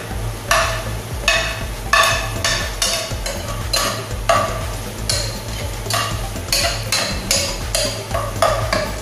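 Spoon stirring and scraping through sautéing garlic, onion and ginger in a pot, in short repeated strokes about two a second, over a light sizzle and a steady low hum.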